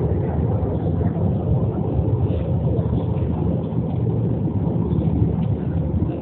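Steady rumble of an airliner cabin in flight: engine and airflow noise, even throughout, with a faint steady hum above it.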